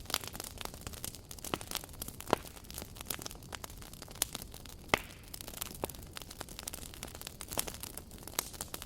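Campfire crackling: irregular sharp pops and snaps of burning wood over a low steady hiss, with a couple of louder pops about two and five seconds in.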